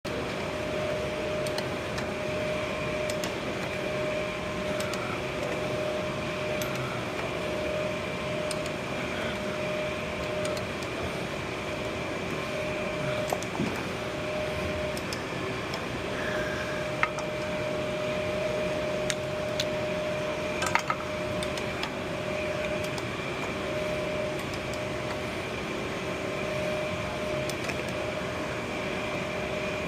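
Electric pipe threading machine running steadily as it cuts threads on gas pipe, a constant motor hum with a few sharp ticks about halfway through.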